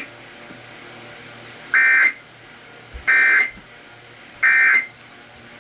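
Emergency Alert System end-of-message signal: three short bursts of SAME data tones, a buzzing two-pitch chirp, about a second apart. It marks the close of the alert.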